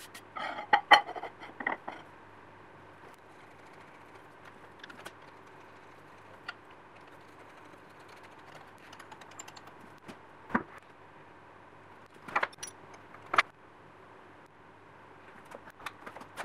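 Steel plate clanking and clinking as it is set down onto a milling machine's cast-iron rotary table. Then small clicks and a few sharp knocks while it is screwed down and the workpiece is placed on it.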